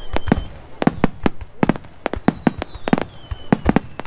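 Aerial firework shells bursting overhead in a rapid, irregular string of sharp bangs, a dozen or more, with a high whistle falling in pitch through the middle.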